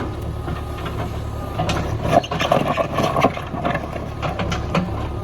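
JCB backhoe loader's diesel engine running steadily, with a spell of knocks and rattling about two seconds in as the machine works soil back over a pipeline.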